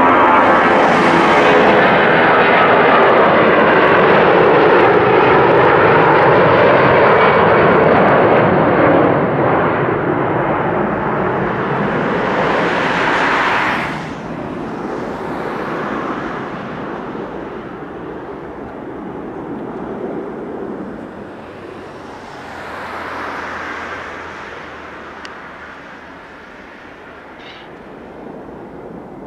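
Four CFM56 jet engines of an Airbus A340-300 at takeoff power as it climbs out. The sound is loud at first, with whining tones gliding down in pitch as it passes. It then fades from about nine seconds in, drops sharply about fourteen seconds in, and thins to a distant rumble that swells and fades as the aircraft recedes.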